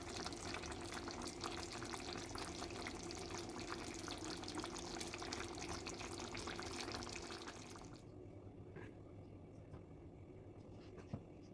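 Food crackling and sizzling in hot oil in a pan, a dense hiss of tiny pops. It stops about eight seconds in, leaving a quieter background with a few light clicks.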